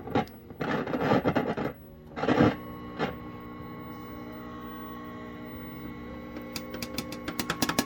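Vintage tube colour television set running with a steady multi-tone hum. There are short noisy bursts in the first couple of seconds, and near the end a rapid string of sharp clicks starts, about eight a second.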